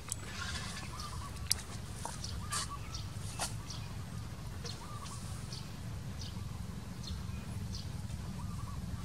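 Outdoor ambience: a steady low rumble with faint, scattered short chirps and a few sharp clicks.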